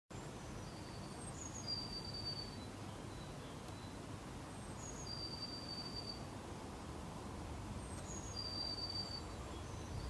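A songbird singing the same short phrase three times, about three seconds apart: a few quick high notes, then a held high whistle. A steady low rumble lies underneath.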